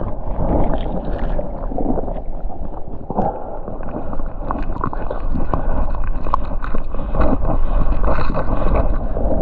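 Water sloshing and gurgling close to the microphone as someone wades, mixed with rubbing and small knocks from handling the camera.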